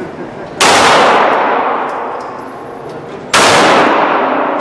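Two 9mm pistol shots from a Beretta 92FS, about three seconds apart, each with a long echoing tail.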